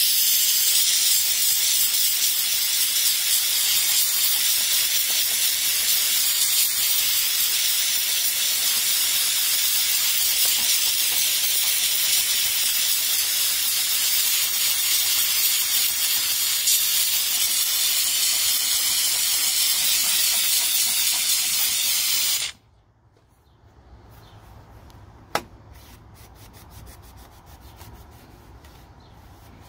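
Harbor Freight handheld steam cleaner jetting steam through a wire brush head onto a car's door sill plate: a loud, steady hiss that cuts off suddenly about three quarters of the way through.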